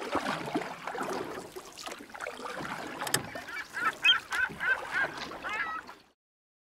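Birds calling: a quick series of short calls over a noisy background, stopping suddenly about six seconds in.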